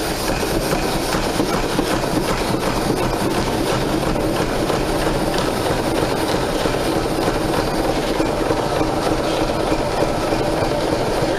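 Stationary steam engines and belt-driven overhead line shafting running, a steady dense mechanical clatter and rattle of moving parts.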